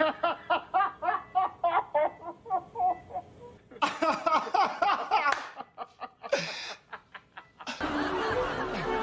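A person laughing in rapid, rhythmic bursts, in two main runs with a short break between. Music comes in near the end.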